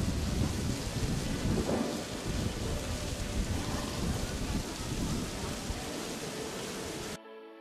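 Outdoor ambience dominated by an irregular low rumble with a steady hiss over it, typical of wind buffeting the camera microphone; it cuts off suddenly near the end.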